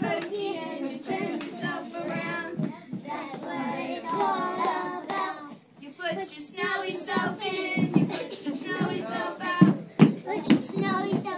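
A group of young children singing a song together, with hand claps that grow louder and sharper near the end.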